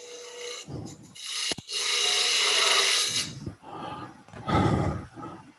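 Turning tool cutting a wooden pepper-grinder blank spinning on a lathe, in several passes. The longest and loudest cut comes about a second and a half in and lasts about two seconds.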